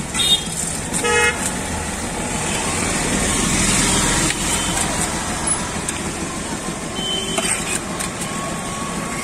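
Street traffic noise, with two short vehicle horn toots in the first second or so and a passing vehicle swelling louder about three to four seconds in.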